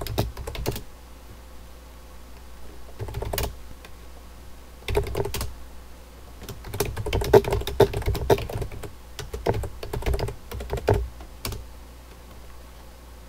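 Keystrokes on a computer keyboard: a few short bursts of typing with pauses between them, then a longer run of typing that stops a couple of seconds before the end.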